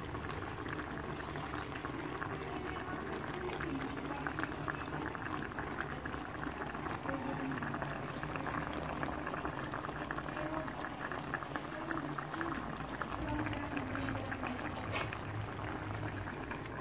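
Soy sauce and calamansi sauce simmering around fried tilapia in a pan, with a steady bubbling and fine crackling.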